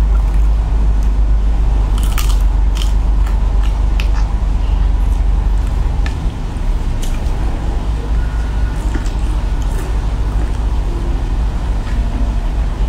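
Close-up eating sounds: sauce-coated shell-on shrimp being cracked open and bitten, giving scattered sharp crunches and clicks, the densest about two seconds in. Under it runs a steady low hum.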